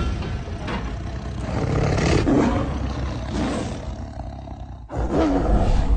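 Loud, deep roaring with a heavy low rumble. It breaks off abruptly just before five seconds in and a second roar starts at once.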